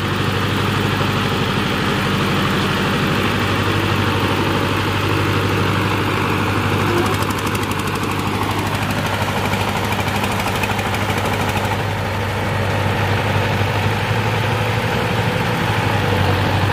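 A diesel tractor and a homemade four-wheel-drive engine trolley running together under load as they churn through deep paddy-field mud: a steady engine chug with a rapid, even knock.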